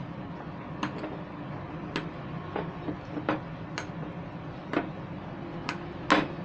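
Metal spoon clinking against a ceramic bowl while mashing boiled chilies, in irregular taps about once every half second to a second, the loudest near the end.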